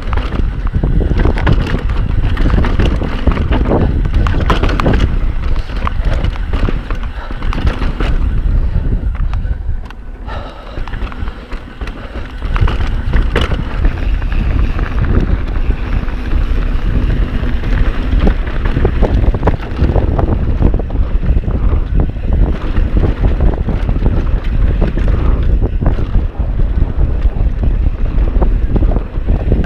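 Mountain bike riding fast down a dirt trail: wind buffeting the microphone over tyre roar and the bike rattling and knocking over rough ground. It goes briefly quieter about ten seconds in.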